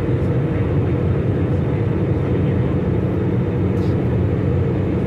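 Steady low drone of an airliner in cruise, engine and airflow noise heard from inside the passenger cabin.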